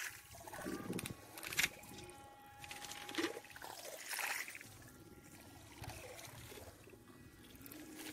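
Shallow water sloshing and trickling at a sandy shore, in irregular surges with a few sharper splashes.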